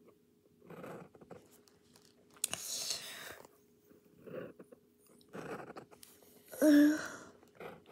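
Soft breaths and mouth sounds from a person, with a short murmured vocal sound near the end.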